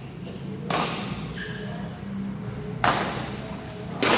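Badminton rally: three sharp racket-on-shuttlecock hits about a second or two apart, each echoing in a large hall, with a short shoe squeak between the first two.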